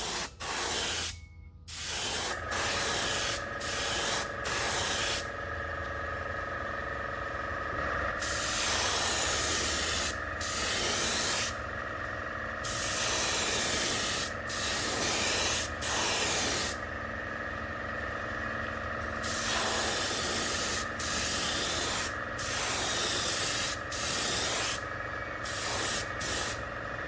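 Airbrush spraying gold paint in repeated short hissing bursts as the trigger is pulled and released, with a steady hum underneath.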